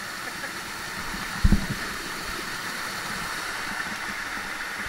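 Steady rushing of a waterfall, with a brief low thump about a second and a half in.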